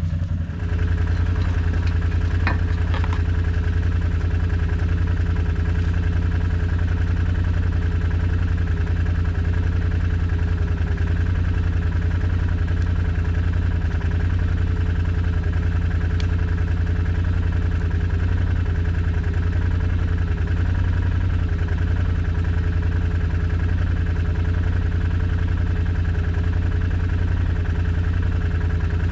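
ATV engine running steadily at idle.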